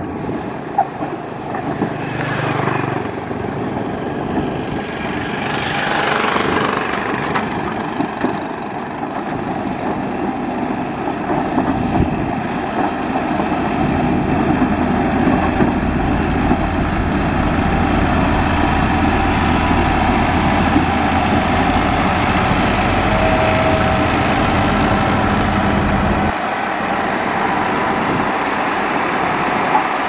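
Dresser motor grader's diesel engine running while the grader works its blade through dirt: a steady mechanical rumble. The deepest part of the rumble drops away suddenly near the end.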